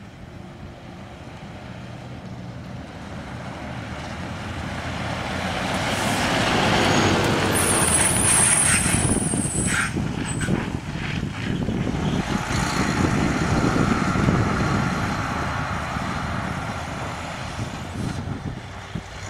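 Heavy farm vehicle's diesel engine drawing near, growing steadily louder, staying loud for several seconds, then fading as it moves off. A short high hiss comes about eight seconds in.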